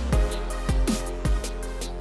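Electronic background music: sustained synth tones over a steady beat of deep drum hits about every half second, each hit dropping quickly in pitch.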